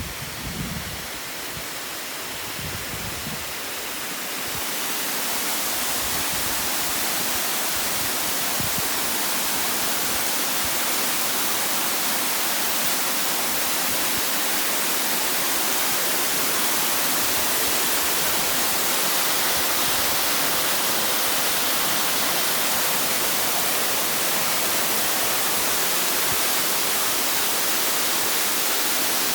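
Waterfall rushing: a steady hiss of falling water that swells about five seconds in and then holds level.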